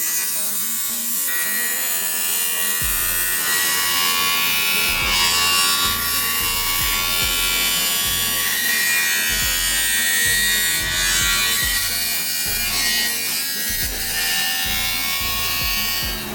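Background hip-hop music with a steady beat, over the buzz of a small electric motor.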